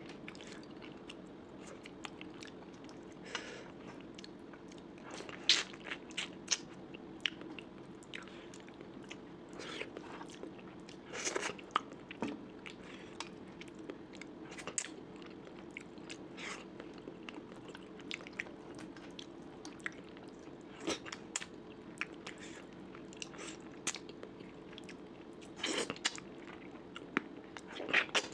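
Close-miked eating: irregular chewing with sharp crunches and clicks while working through spicy curry with rice, over a steady low hum.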